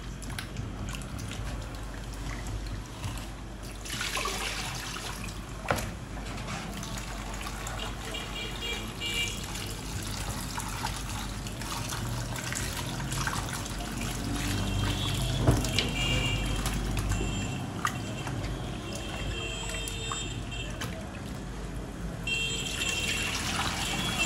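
Cut yam pieces being washed by hand in a bowl of water: water sloshing and trickling, with occasional knocks of the pieces against the bowl.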